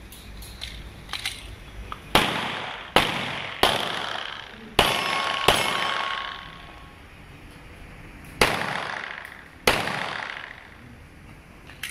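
Seven pistol shots in irregular succession, each with an echoing tail, with a pause of about three seconds before the last two as the shooter changes position. A metallic ring from a struck steel target lingers after the middle shots.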